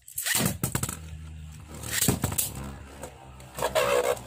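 Two Beyblade Burst spinning tops launched into a clear plastic stadium: a loud rush as they land just after the start, then a steady scraping whir of their tips on the stadium floor with sharp clacks as they strike each other and the wall.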